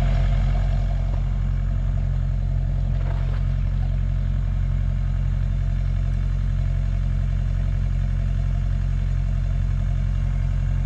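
An engine idling steadily: a low, even drone that does not change.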